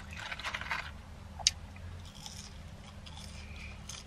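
Fries being eaten out of a cardboard carton: cardboard packaging rustling and scraping under the hands, with chewing. A single sharp click about a second and a half in.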